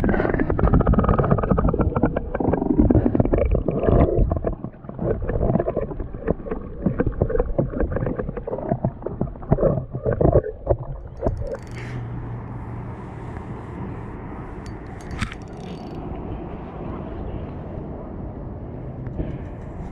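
Water splashing and sloshing around a plastic kayak, with many irregular knocks for about ten seconds, then settling to a quieter, steady wash of water.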